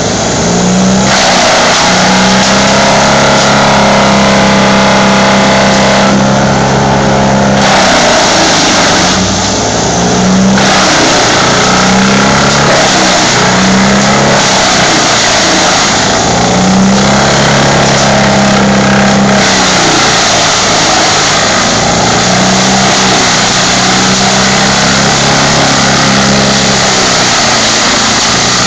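Tow-behind wood chipper running at full speed while whole tree limbs are fed through it. The engine note dips briefly and recovers again and again as the wood loads the cutter, over a constant noisy grinding of branches being chipped.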